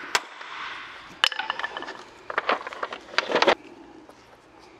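Sharp plastic clicks and small cracks from prying the crankcase-vent (oil separator) cap off a BMW N55 plastic valve cover with hand tools. The clicks come singly and in short clusters through the first three and a half seconds, then stop.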